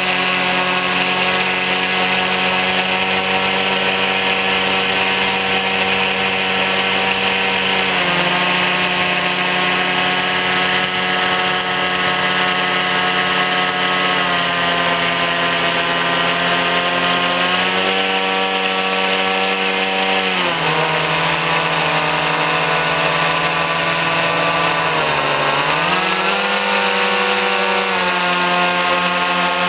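Remote-control blimp's propeller motors running close by with a steady whine, the pitch stepping up and down several times as the throttle changes. Near the end the pitch dips sharply and climbs back.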